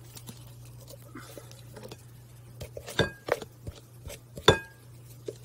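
Eggs knocked against the rim of a glass mixing bowl to crack them: two sharp clinks with a brief ring, about a second and a half apart, among smaller taps and rustles.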